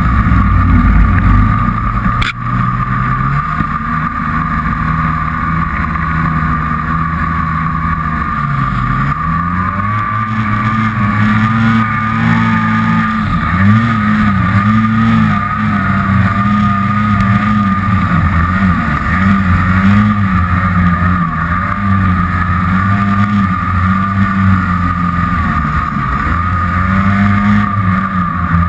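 Turbocharged Polaris Dragon snowmobile's two-stroke engine running under way, its pitch rising and falling with the throttle.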